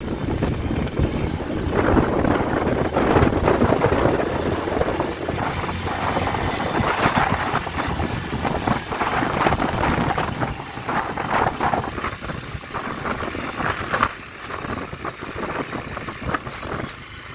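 Small motorcycle running while riding over a rough gravel road, with wind rushing over the microphone. The sound drops noticeably quieter about fourteen seconds in.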